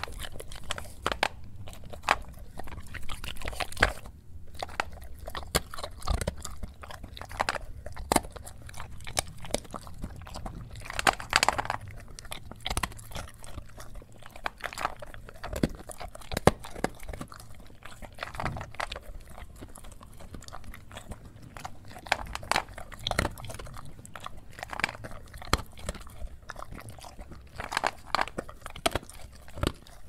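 Dog chewing and crunching a snack, in irregular bites with a few louder crunches, over a faint low hum.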